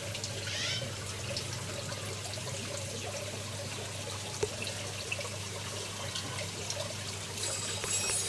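Water trickling steadily in a small aquaponics system, over a low steady hum.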